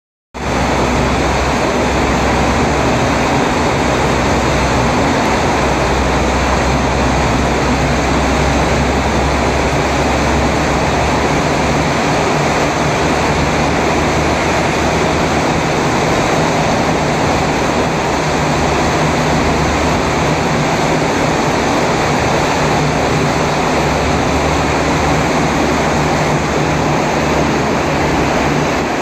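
Steady rushing noise of an open-top bus driving through a road tunnel: air and traffic noise echoing off the tunnel walls, with a low engine hum underneath.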